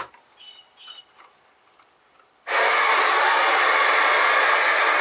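A click at the start, then a handheld hair dryer switched on about halfway through and running with a loud, steady rush of air.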